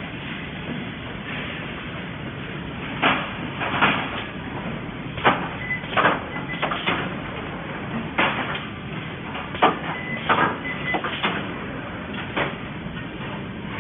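Gantry-type multi-point automatic welding machine running: a steady machine noise with about ten short, sharp bursts at irregular intervals of around a second, as its welding heads cycle.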